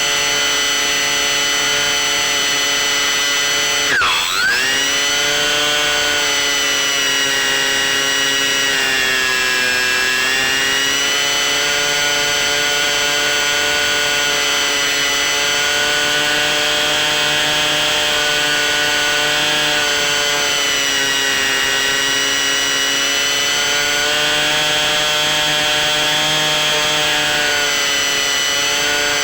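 The C1 Chaser model airplane's motor and propeller run with a steady whine. The pitch drops sharply and comes straight back about four seconds in, then sags and recovers again around ten seconds in as the throttle changes.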